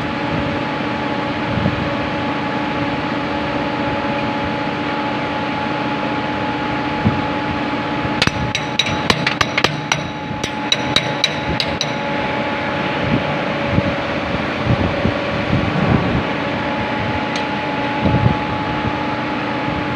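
Steady machinery hum with a few fixed tones, with a run of sharp metallic clicks and taps from hand tools on metal about eight to twelve seconds in, and scattered duller knocks.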